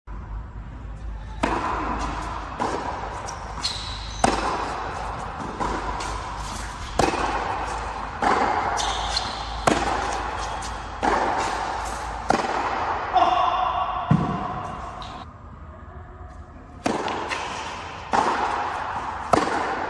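Tennis rally on an indoor hard court: the ball cracks off rackets and bounces on the court about once every second or so, each hit echoing in the big hall.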